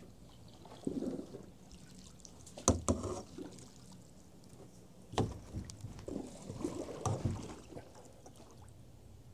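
Canoe being paddled through floodwater: paddle strokes swish and splash in the water, with a few sharp knocks on the canoe's hull. The loudest are two close together about a third of the way in, and another comes about halfway.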